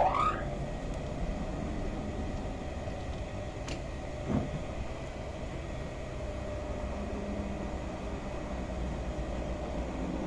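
Union Special 35800 industrial chainstitch sewing machine running with a steady hum. The tail of a loud rising whir is heard at the very start, and a click and a short thump come about four seconds in.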